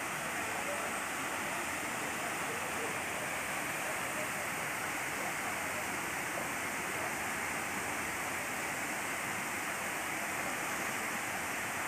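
Creek water rushing over a small rocky cascade: a steady, even rush of falling water.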